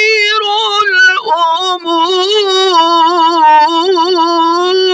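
An elderly man's voice chanting Quran recitation (tilawat), drawing out a word of the verse in a long melodic line held on nearly one pitch with small wavering ornaments. There is a brief break about a second in.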